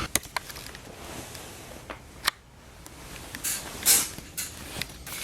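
Scattered sharp clicks and short rustles of handling and movement, with a louder rustle about four seconds in.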